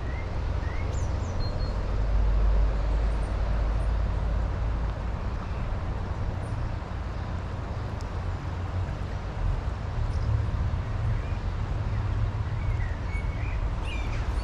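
Shallow river running over a stony riffle, a steady rush of water, with wind rumbling on the microphone. A few short bird chirps come through near the start and again near the end.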